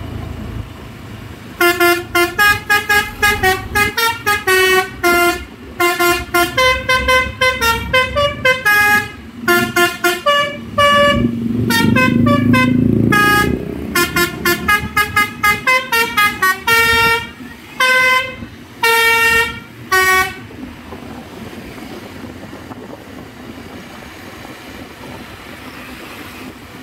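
Cement mixer truck's Basuri telolet horn playing a fast tune of short, staccato horn notes that jump up and down in pitch for nearly twenty seconds, then stopping. The truck's engine runs underneath and swells briefly about halfway through.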